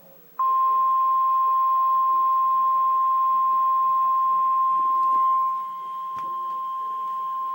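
Emergency alert attention tone: the National Weather Service's single 1050 Hz warning alarm tone, a loud, steady pure beep that cuts in about half a second in and holds without a break. It drops somewhat in volume about five and a half seconds in. It signals that a severe weather warning message follows.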